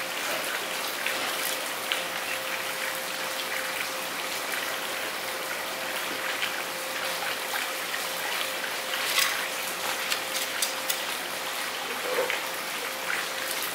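Busy fish market ambience: a steady hiss like running water, with scattered clicks and knocks, faint voices and a steady hum underneath.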